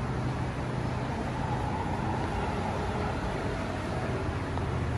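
City street ambience at night: a steady wash of distant road traffic with no single event standing out.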